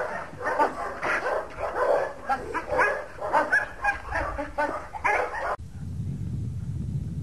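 A dog barking rapidly and repeatedly at a man in protection training, about two barks a second. About five and a half seconds in, the barking cuts off abruptly and a steady low rumble follows.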